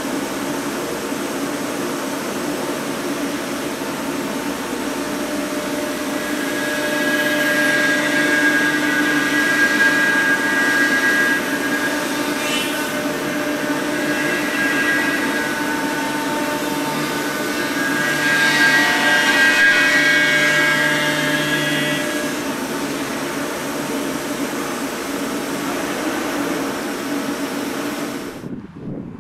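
C.R. Onsrud 148HD25 Extreme Duty CNC machining center's spindle and end mill milling a circular groove in 3-inch-thick friction stir welded aluminum extrusion: a steady machine hum with a cutting whine. The sound grows louder with a high singing tone through the middle stretch, and stops abruptly near the end.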